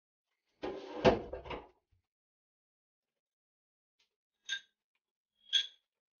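A loud clattering knock about a second in, then two light metallic clinks as the gas stove's burner caps are lifted off.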